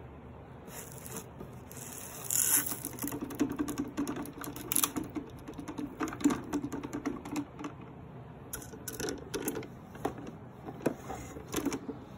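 Dust fluff mixed with small crunchy granules being handled and crushed by hand, giving dense crackling and crunching from about two seconds in. It thins to scattered clicks and rustles near the end.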